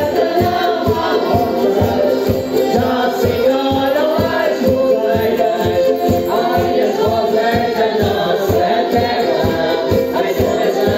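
Music with several voices singing together over a steady, evenly repeating beat.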